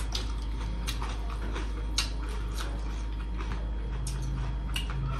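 Close-miked eating sounds: scattered wet clicks and smacks of chewing, with fingers working food on a metal plate, over a steady low hum.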